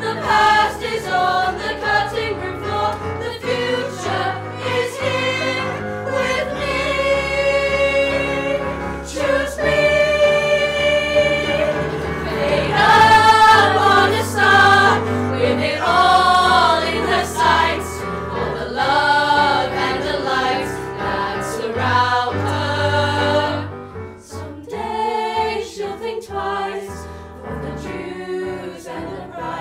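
A group of voices singing a musical theatre song together over instrumental accompaniment, with long held notes in the middle.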